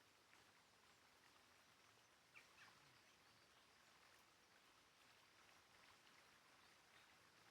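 Near silence: faint outdoor background hiss, with a couple of faint bird chirps about two and a half seconds in.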